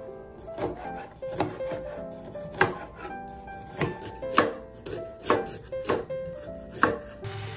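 Chef's knife slicing through calamansi and then red onion onto a plastic cutting board: about ten sharp knocks of the blade hitting the board, unevenly spaced, roughly one or two a second.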